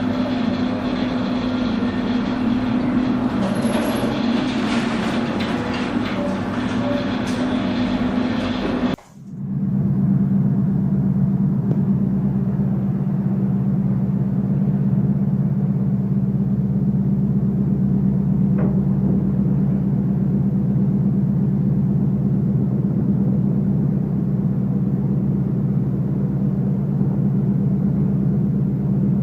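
Steady low drone of a ship's engine and machinery, with a hiss of wind and sea over it at first. After an abrupt cut about nine seconds in, the drone carries on alone, lower and even.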